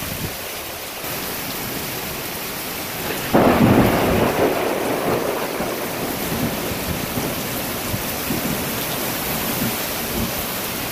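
Heavy rain pouring steadily in a thunderstorm. About three seconds in, a sudden loud clap of thunder breaks in and rumbles away over the next couple of seconds.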